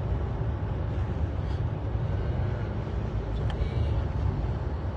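Steady low rumble of a vehicle heard from inside its cabin, engine and road noise with no sharp events.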